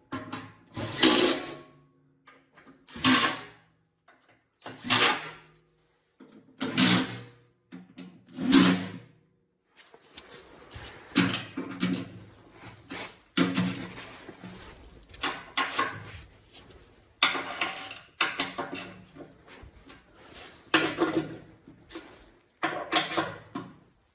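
A cordless impact driver runs in short bursts about every two seconds, driving skid plate bolts in. From about ten seconds in, a hand ratchet wrench clicks in quick back-and-forth strokes as the bolts are tightened to 16 foot-pounds.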